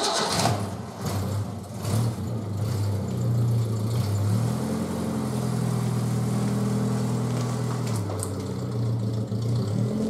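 Datsun 1200 wagon's engine starting up and idling, then revved about four seconds in, held higher for about three seconds, and dropping back to idle near the eight-second mark.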